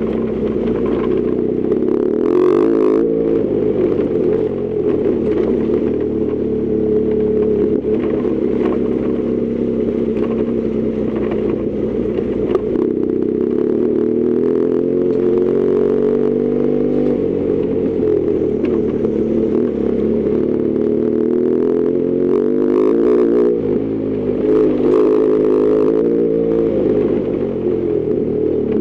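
BMW R1200GS Adventure's flat-twin boxer engine running under way, its pitch climbing and falling with throttle and gear changes, with a few short bursts of clatter.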